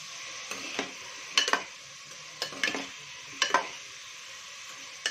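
Diced potatoes, carrots and peas sizzling in oil in an aluminium pressure cooker while a metal spoon stirs them. The spoon knocks and scrapes against the pot, mostly in pairs, about once a second.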